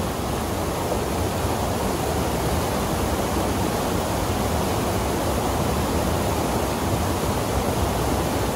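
Whitewater rapids and a small waterfall pouring into a rock pool, a steady, even rushing of water.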